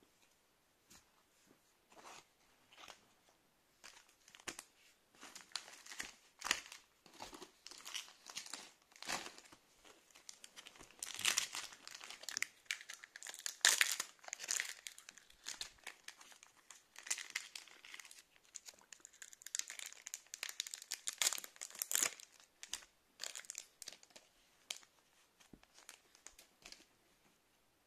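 Foil wrapper of a counterfeit Pokémon Sun & Moon booster pack crinkling and tearing as it is opened by hand. The rustling comes in irregular crackles, loudest around the middle and again a few seconds before the end.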